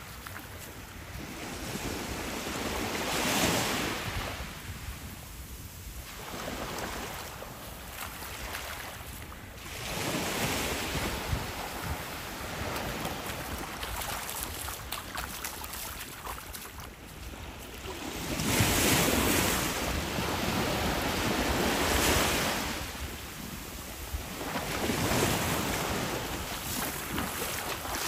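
Small waves lapping up onto a sandy beach, the wash swelling and fading every few seconds, with wind rumbling on the microphone.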